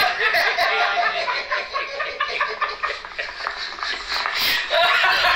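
Men laughing hard, mixed with bits of overlapping talk.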